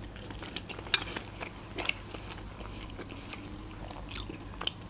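A person chewing a mouthful of dushbara dumplings in broth, with wet mouth smacks and a few sharp clicks, the sharpest about a second in.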